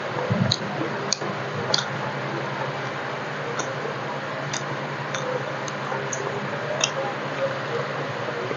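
Close-miked eating of soft roti dipped in arbi curry: scattered short, wet mouth clicks and lip smacks, irregular, about one or two a second, over a steady hiss.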